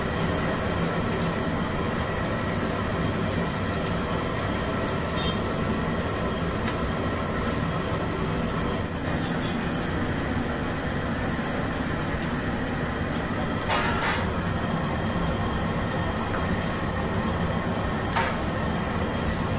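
Mysore bonda balls deep-frying in a large iron kadai of hot oil: a steady sizzle over a constant low rumble, with two brief sharp clacks, one about two-thirds of the way in and one near the end.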